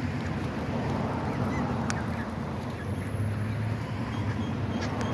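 A flock of ducks and geese calling at close range over a steady low background rumble.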